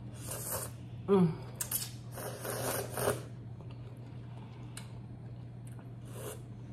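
A person slurping ramen noodles in several hissing bursts over the first three seconds, with a short voiced sound about a second in, then a sip of broth from a spoon near the end.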